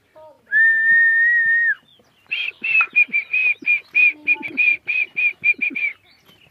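A person whistling: one long, steady held note, then a quick run of short whistled notes, about four a second.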